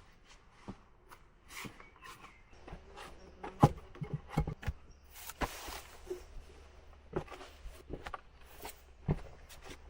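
Irregular knocks and taps of wood being handled during bushcraft work, with a short scraping rustle about five and a half seconds in.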